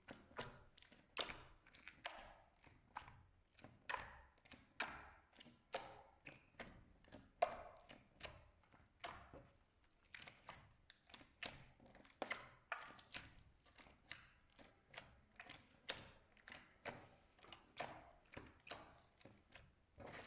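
Slime being pressed and squished by hand, making a steady run of short sticky pops and clicks, about two a second.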